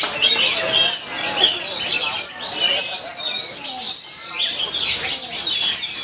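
Several caged songbirds singing at once in fast, overlapping whistles, trills and chirps, among them an Oriental magpie-robin in full song.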